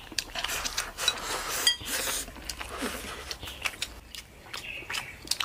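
Eating utensils clinking and tapping against dishes during a meal: many small scattered clicks, with two brief ringing chinks about one and a half seconds in.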